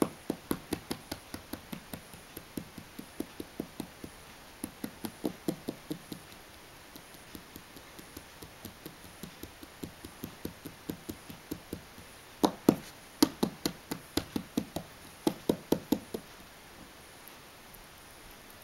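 A lop-eared rabbit hopping across a wooden floor: quick, even knocking footfalls, about four or five a second, in several bursts. They are loudest a little past the middle and stop a couple of seconds before the end.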